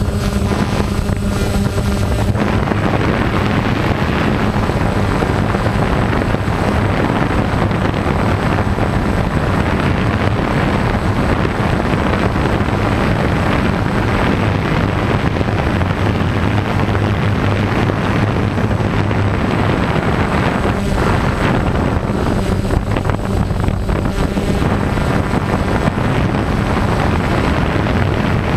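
Small multirotor drone's electric motors and propellers whirring steadily as it flies, heard from its own onboard camera, with a low hum and some wind on the microphone.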